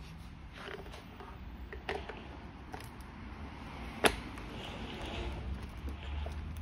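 Plastic wheel cover being pressed onto the hub of a kids' ride-on quad bike wheel, snapping into place with one sharp click about four seconds in, after a couple of softer knocks from handling.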